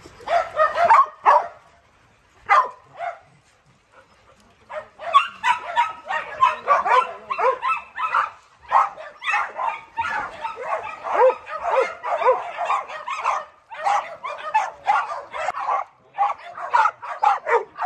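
Dogs barking: a few barks early, a short lull, then rapid, near-continuous barking from about five seconds in.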